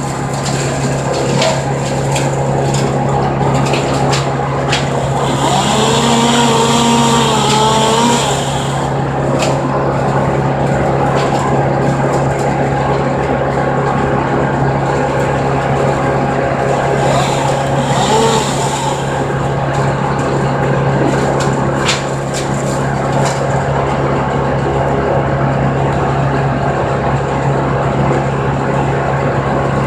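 Brush chipper's engine running steadily at constant speed, a loud even drone, with a brief wavering higher tone about six to eight seconds in.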